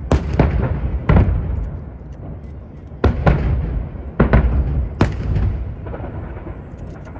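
Aerial firework shells bursting: a series of about eight sharp booms in irregular clusters, each trailing off in a rumble.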